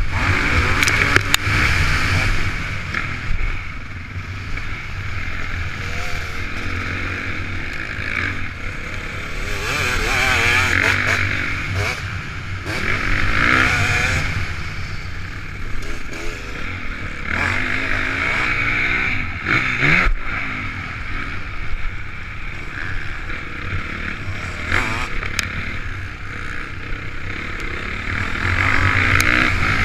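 Honda CRF450's four-stroke single-cylinder engine revving up and easing off again and again as the motocross bike is ridden hard round the track.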